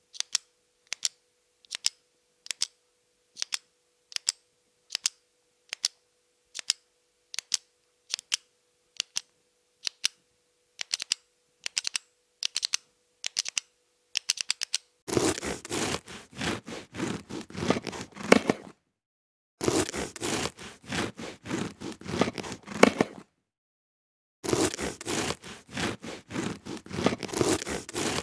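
A four-colour ballpoint pen clicking, about one click every 0.8 s with some quick pairs. About fifteen seconds in, a serrated bread knife starts sawing through a crusty baguette in repeated rasping strokes, with two brief pauses.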